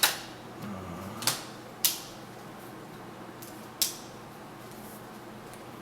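Plastic laptop screen bezel being pressed back into place, its clips snapping in with four sharp clicks spread over a few seconds.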